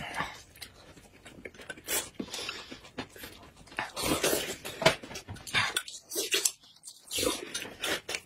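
Close-up eating sounds: wet slurping, sucking and lip-smacking as soft kiwi fruit is bitten and sucked and a thin yellow liquid is sipped from a spoon, in an irregular run of short noisy bursts.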